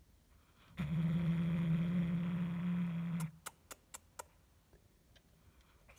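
Tuxedo cat growling low and steadily for about two and a half seconds while holding a feather toy in its mouth: a possessive growl, guarding the toy. A few short, sharp clicks follow.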